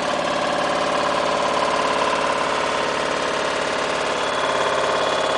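Engine of an AUSA 200 RMR minidumper running steadily, throttled up to power its backhoe arm.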